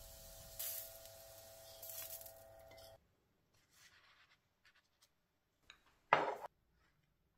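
Food sizzling in a hot pan with a faint steady hum, swelling twice and then cutting off suddenly about three seconds in. Quiet kitchen handling sounds follow, with one short, sharp sound about six seconds in.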